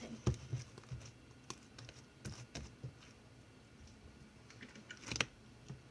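Slime being kneaded and pulled by hand, giving scattered small sticky clicks and pops, with a little cluster of them about five seconds in.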